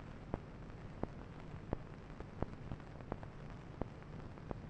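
Surface noise of an old film soundtrack: a low hum and hiss with sharp clicks and pops, roughly one every two-thirds of a second.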